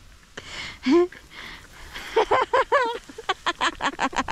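A person laughing: a breathy gasp near the start, then a quick run of short laughs from about halfway through.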